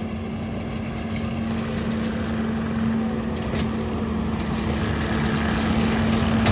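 Skid-steer loader engine running at a steady speed with a constant hum, slowly growing louder.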